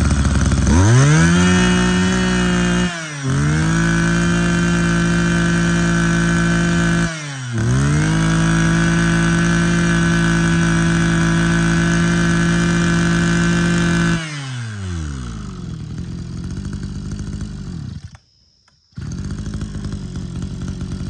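Mitsubishi TL23 23cc two-stroke brush cutter engine revved to full throttle three times, dropping back briefly between runs, then falling to idle about fourteen seconds in. The sound drops out for about a second near the end, then the idle goes on.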